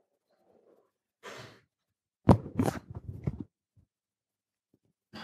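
Handling noise on a lectern microphone: a brief rustle, then a quick cluster of loud thumps and knocks lasting about a second, and another short rustle near the end.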